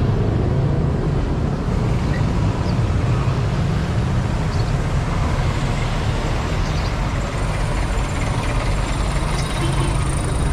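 Steady road traffic noise: cars and passenger jeepneys running along a busy multi-lane road, with a continuous low engine rumble.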